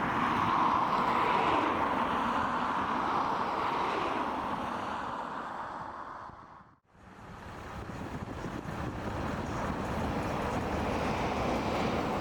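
Boeing 777 jet engine noise. It fades away to near silence a little past halfway, then fades back in and grows.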